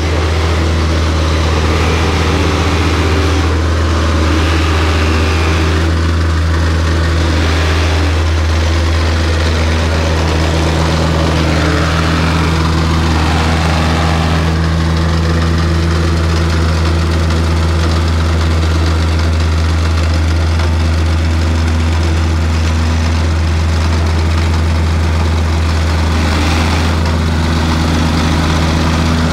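Petrol plate compactor running at a steady speed with a constant low hum, its vibrating plate tamping down a sand base.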